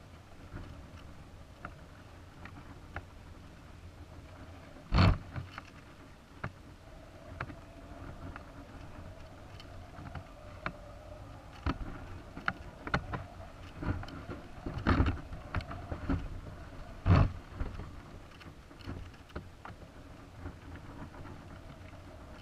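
Knocks and clicks picked up by the onboard camera of a high-altitude balloon payload as it swings and turns, over a low steady rumble; the loudest thumps come about five, fifteen and seventeen seconds in.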